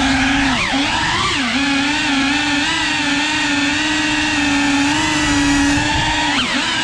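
Motors and propellers of a 3.5-inch cinewhoop FPV drone whining steadily in flight. The pitch dips and rises sharply with throttle changes about half a second and a second and a half in, and again near the end.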